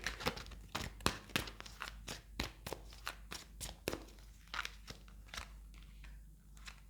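A tarot deck being shuffled and handled by hand: a quick, irregular run of soft card clicks and flicks that thins out toward the end.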